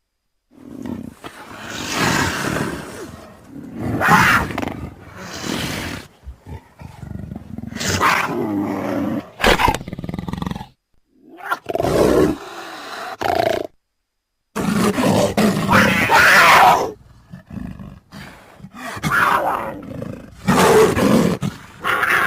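Velociraptor creature sound effects: a string of separate snarling calls, each a second or two long, some low and some shrill, with short silent gaps between them.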